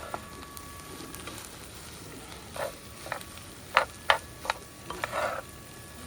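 Spoons or chopsticks clinking and scraping against dishes during a meal: a handful of short sharp clinks in quick succession a little past the middle, with two brief scrapes, over a steady background hiss.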